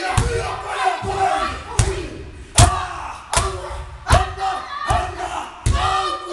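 Men's voices chanting and shouting a Māori haka in unison, punctuated by loud slaps and stamps about every three-quarters of a second, the loudest about two and a half seconds in.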